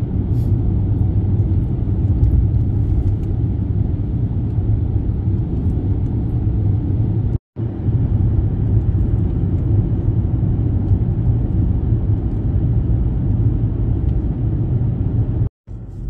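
Steady low rumble of a car driving, road and engine noise heard from inside the cabin. It drops out for an instant twice, about halfway through and near the end.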